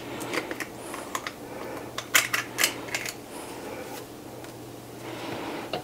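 An ice cream scoop scraping and clicking against the pint container and ceramic bowl as a ball of firm ice cream is dug out and dropped in, with a cluster of sharp clicks about two seconds in. A faint low steady hum runs underneath.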